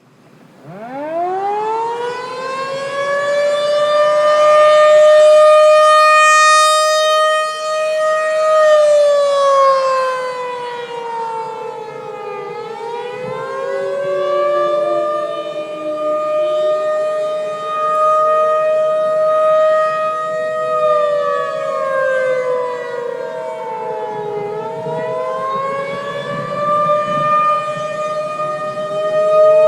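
Tornado warning siren winding up from silence to a steady high wail within the first few seconds. It then twice slides down in pitch and winds back up, about every twelve seconds.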